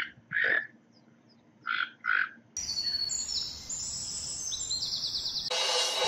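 Four short raspy animal calls in two quick pairs, the pairs about a second and a half apart. About halfway through, electronic music with high stepped chimes takes over and swells near the end.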